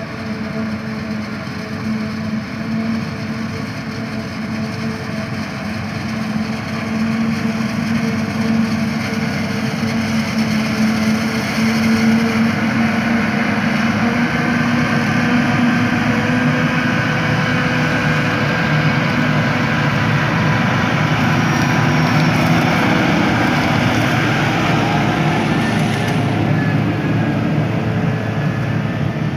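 Self-propelled forage harvester and a tractor running steadily together while chopping maize into a silage trailer, a continuous engine and chopper drone. It grows louder from about seven seconds in as the tractor and trailer come close.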